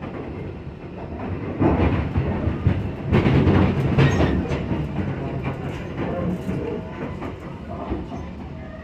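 Sounder commuter train rolling along, heard from inside the passenger coach: a steady running rumble with the wheels clattering over the track, loudest between about one and a half and four and a half seconds in, then settling back.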